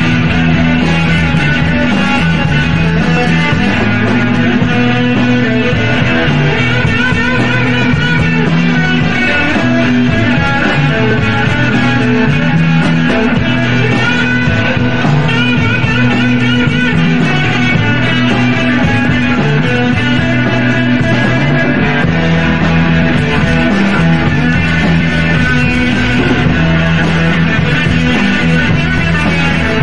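Psychedelic rock recording, guitar-led over a full band, playing at a steady level throughout.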